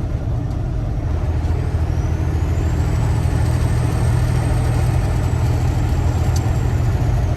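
Semi-truck diesel engine running under way, pulling harder about a second in, with a thin high whine that rises over the next two seconds and then holds steady.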